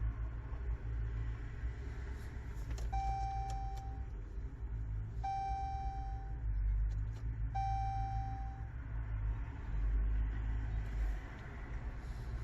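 Three identical electronic chime tones, each about a second long and a little over two seconds apart, over a steady low rumble.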